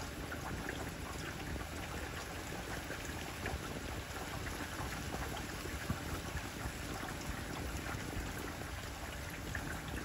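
Steady rain falling on tree foliage: a continuous hiss with many small scattered drop ticks and one sharper drip about six seconds in.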